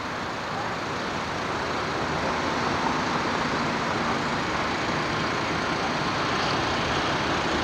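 Steady road traffic noise with a motor vehicle's engine running, giving a faint steady hum.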